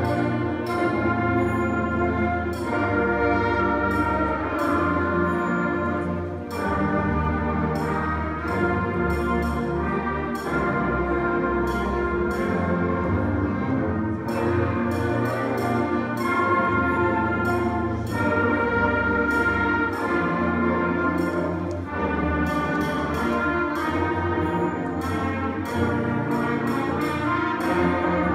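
Student concert band playing: flutes, clarinets, saxophones, trumpets, trombones and tuba in sustained chords, with frequent percussion strokes.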